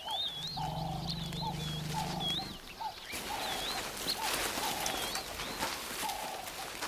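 Birds calling: a high warbling call repeats about twice a second over lower repeated calls. A low steady hum runs for about two seconds near the start, and a crackling hiss joins about three seconds in.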